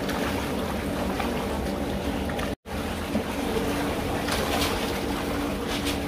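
A steady motor hum over running water. The audio drops out for an instant about halfway through.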